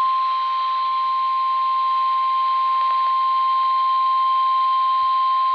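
NOAA Weather Radio 1050 Hz warning alarm tone, one steady held tone that signals a warning message is about to be broadcast. It plays through a weather radio's speaker over reception hiss and cuts off at the very end.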